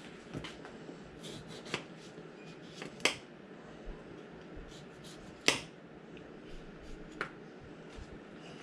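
Eating noises at a meal: scattered sharp clicks and smacks, with two louder clicks about three and five and a half seconds in.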